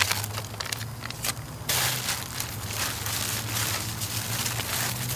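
Thin plastic shopping bag crinkling and rustling with irregular crackles as hands hold it open and work seasoning into pieces of raw meat. It gets louder and denser about two seconds in.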